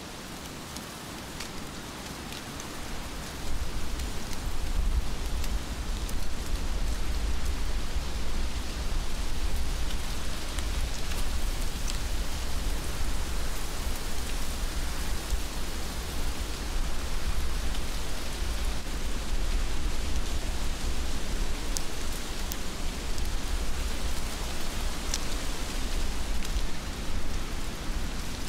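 Steady heavy rain falling, with scattered close drop ticks. About three seconds in, a low rumble joins and runs on under the rain, and the whole sound gets louder.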